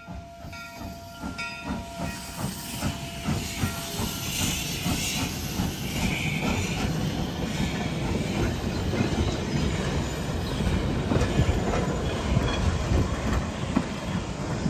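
Steam locomotive running, with hissing steam over a rapid low clatter of wheels and running gear, growing louder over the first few seconds and then holding steady.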